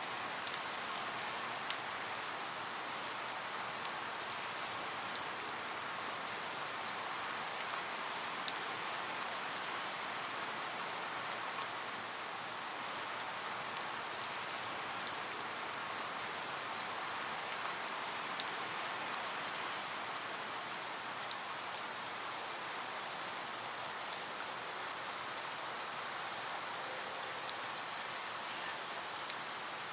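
Steady rain: an even hiss with scattered single drops ticking sharply at irregular intervals.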